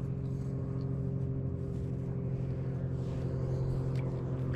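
A steady low mechanical hum, a constant pitched drone that does not rise or fall.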